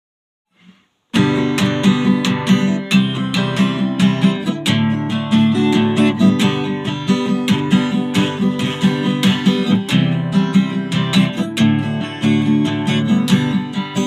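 Acoustic guitar intro strummed in a steady rhythm, starting about a second in after near silence.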